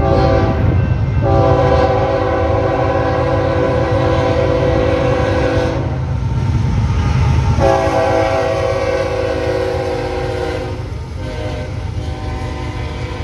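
A BNSF freight locomotive's multi-chime air horn sounds two long blasts for a grade crossing, the first from about a second in to about six seconds, the second from about seven and a half to eleven seconds, over the steady rumble of the diesel locomotives. Near the end the horn stops and only the rumble of the double-stack container cars rolling past is left.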